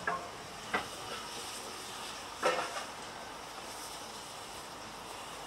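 Narrow-gauge steam locomotive hissing steam steadily, with three short knocks, the loudest about two and a half seconds in.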